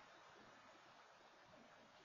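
Near silence: a faint, steady outdoor background hiss.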